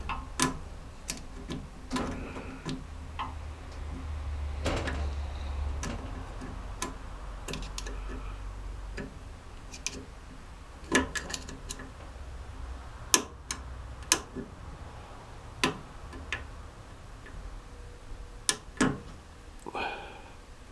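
Irregular sharp metallic clicks, about one a second with some close together, as a thin pick works a circlip out of its groove on a BMW R100RS gearbox input shaft, its spring held compressed in a press.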